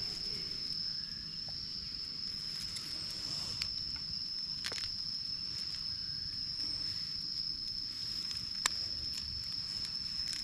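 An insect trilling on one steady high pitch without a break, over a low outdoor rumble, with a few sharp clicks scattered through it.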